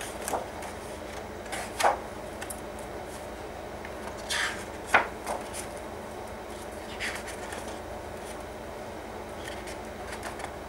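Sheets of a pad of patterned scrapbook paper being lifted and turned by hand: several short paper swishes and rustles over a steady low hiss.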